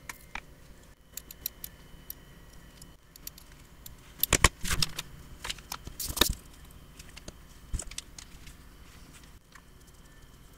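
Sheets of paper being handled and slid on the workbench, with scattered light taps and clicks. There are two louder rustling bursts, about four and six seconds in.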